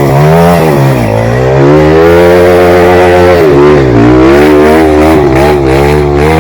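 Trail motorcycle engine, loud and close, revving up and dropping back several times as the throttle is worked.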